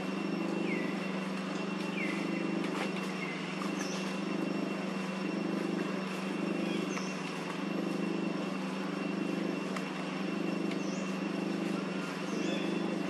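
A steady low motor hum that pulses about once a second, with short chirps of birds over it: a falling chirp three times in the first few seconds, then higher chirps now and then.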